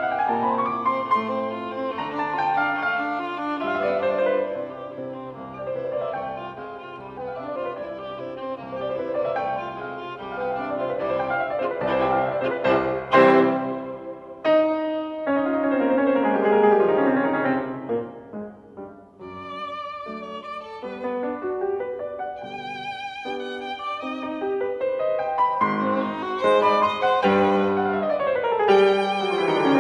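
Classical background music of bowed strings with piano, in slow flowing melodic phrases with some held, wavering notes.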